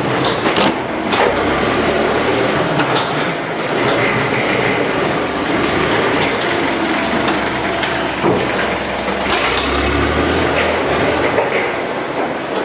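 Loud, steady mechanical clatter and rumble, with scattered knocks.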